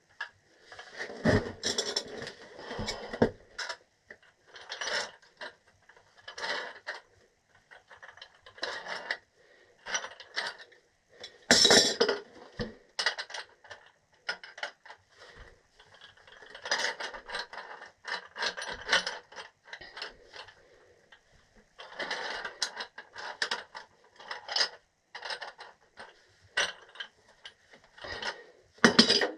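Wrench tightening threaded gas pipe fittings onto a furnace gas valve: repeated bursts of metal clicking and scraping as the threads are turned, with a louder clank about twelve seconds in.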